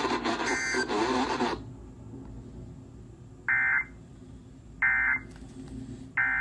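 Noisy FM-radio broadcast audio with a faint voice cuts off about a second and a half in. Then come three short, harsh buzzy data bursts about a second and a third apart: the Emergency Alert System end-of-message code that closes the alert.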